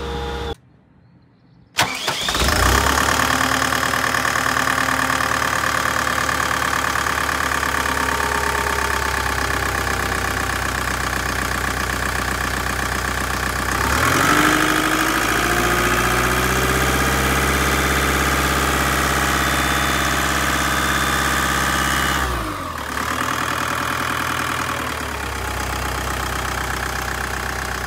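Deutz diesel engine of a Liebherr A309 wheeled excavator, started after a moment of near silence and catching at once, then running steadily. Its speed rises about halfway through and drops back a few seconds before the end.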